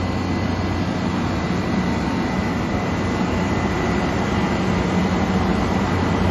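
Refrigeration units running steadily: an even fan rush with a constant low hum and a thin, steady high whine.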